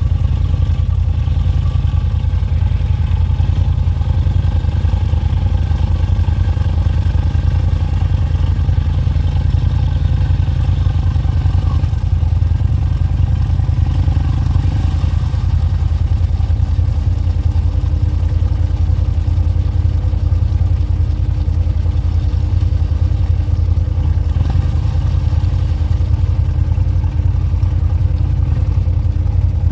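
Four-wheeler ATV engine running steadily at low revs in a low crawl gear, pulling slowly through a deep mud hole; a steady, unbroken drone, shifting slightly in pitch about halfway through.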